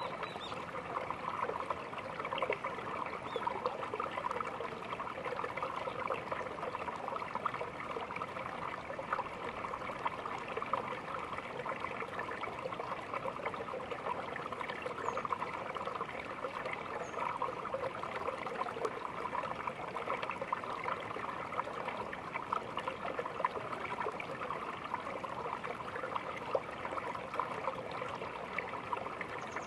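Small stream trickling and burbling steadily over stones.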